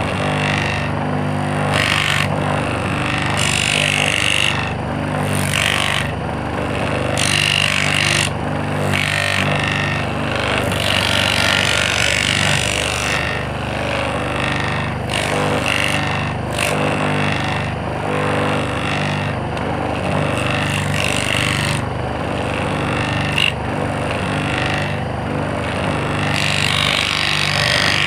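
Small electric motor (dinamo) running at a steady speed with a constant hum, overlaid by irregular scraping surges every second or so as its sanding attachment rubs against a surface.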